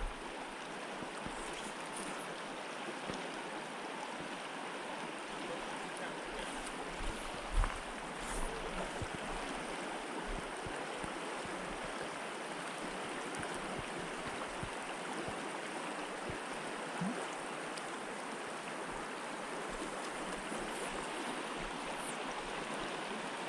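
Stream water flowing steadily, a continuous even rush. A couple of short knocks come about seven to eight seconds in.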